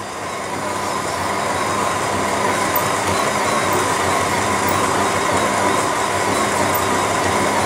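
Electric planetary stand mixer running steadily, its motor humming with a steady whine as it mixes flour, margarine and eggs into a crumbly dough. It gets a little louder over the first couple of seconds, then holds.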